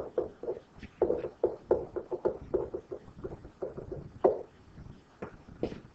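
A run of soft, irregular taps and knocks, a few a second.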